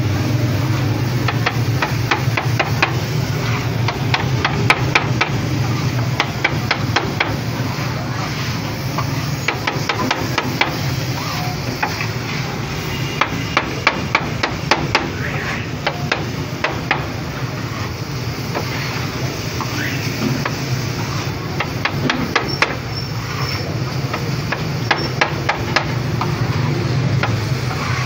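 Metal spatula chopping and scraping chicken on a flat steel griddle: rapid clanking strokes in runs, over a steady low hum.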